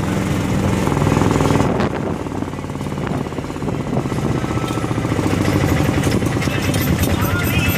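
Small vehicle engine running with a fast rattling pulse, heard from on board the moving vehicle; it eases off briefly about two seconds in, then picks up again.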